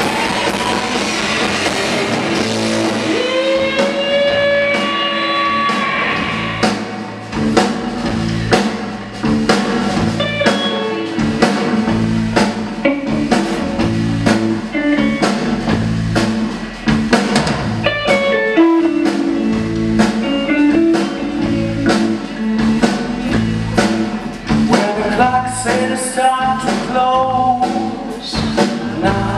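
Live blues-rock band playing, with electric guitar, keyboard and drum kit together and a steady drum beat.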